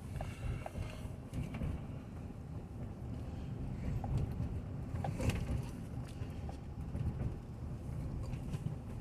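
Low rumble of a 2020 Chevy Suburban's 5.3-litre V8 idling, heard from inside the cabin, with a few faint light clicks.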